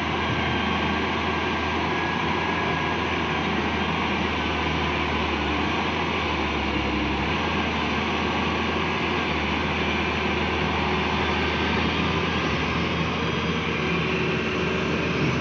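Hyundai wheeled excavator's diesel engine running steadily as the machine works.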